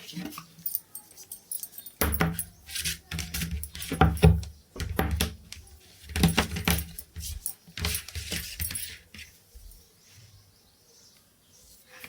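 Metal objects clinking and rattling as they are handled: an irregular run of knocks and jangles with some dull thumps, busiest in the middle and dying away near the end.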